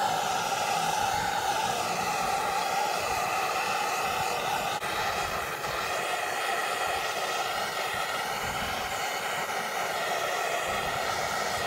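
Hand-held propane torch on a 1 lb propane cylinder burning with a steady, unbroken hiss of flame as it chars the surface of a wood carving.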